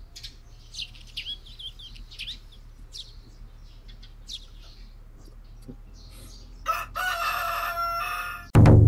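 A morning wake-up soundscape: small birds chirping in short repeated calls, then a rooster crowing for about two seconds near the end. A sudden loud hit follows just before the end.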